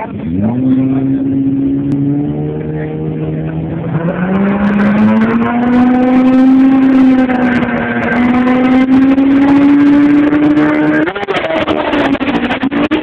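Drag-racing car engine revving and held at high revs, its pitch climbing about four seconds in and staying high, with a short break near the end.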